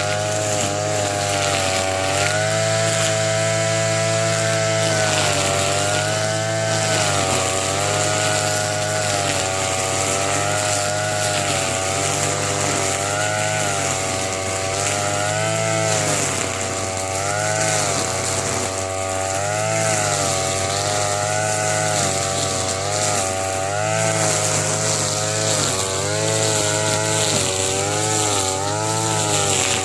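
TB33 two-stroke brush cutter running at high revs while cutting thick grass, the engine speed dipping and recovering over and over as the cutter takes load.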